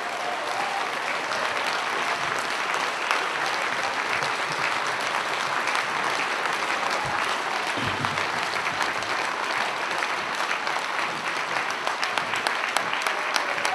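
A large audience applauding, a steady, sustained clapping that runs on at length.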